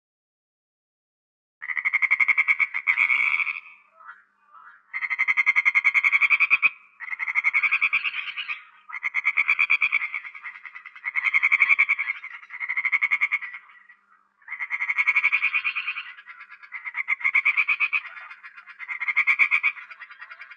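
A frog calling in a run of rapid pulsed trills, each a second or two long, about ten in a row with short gaps between them, starting about a second and a half in.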